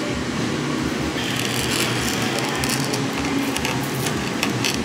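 Cafe background noise: a steady room hum with scattered clinks and clatter, and a short hiss about a second in.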